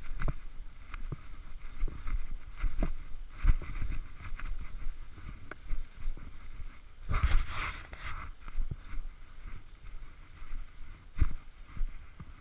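Footsteps crunching through snow, roughly one step a second, each with a low thump and a short crunch, together with the rustle of clothing close to the microphone. About seven seconds in there is one louder, longer crunching scrape.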